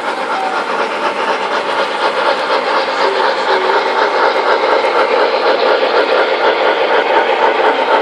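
Model trains running on the layout's track: a steady motor whir and hum with a fast, even clicking of wheels over the rails, growing louder.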